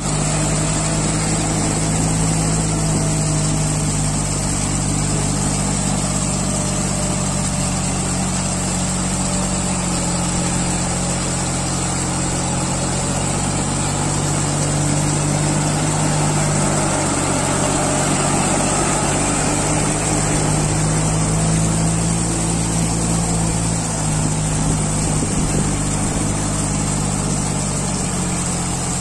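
New Holland four-wheel-drive tractor's diesel engine running steadily, its speed drifting slightly up and down now and then.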